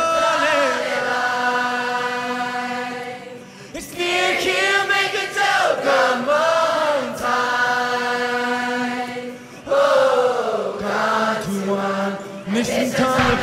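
Many voices singing together in long held notes, phrase by phrase, without drums or a beat; the sung line breaks briefly about four seconds in and again near ten seconds.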